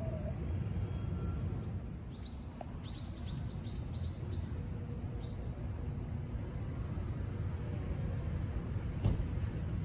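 A small bird calling a quick run of short, rising high chirps for about two seconds, followed by a few scattered notes, over a steady low rumble of outdoor background noise.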